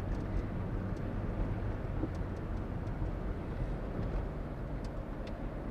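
Steady low drone of a car's engine and tyres heard from inside the cabin while driving. A couple of faint short ticks near the end fit the chirps the uploader puts down to the camera's wifi being on.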